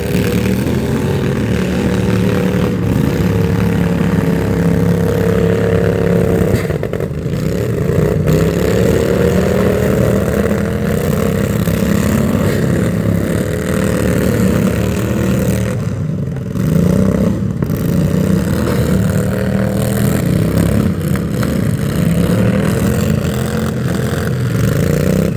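An engine running loudly, its pitch slowly rising and falling as it revs, with brief dips about seven and sixteen seconds in.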